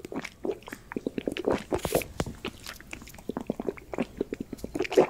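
A kitten lapping water from a stainless steel bowl: a quick, irregular run of small wet clicks, several a second, with a louder one near the end.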